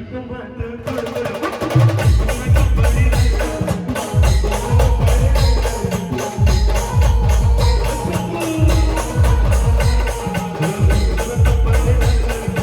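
Indian brass band playing a folk song: a brass melody over heavy drums, with a deep beat that repeats about every two seconds. The full band comes back in about a second in, after a brief drop.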